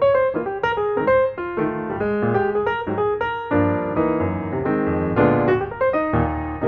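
Background music: solo piano playing a flowing run of single notes, with fuller chords from about halfway through.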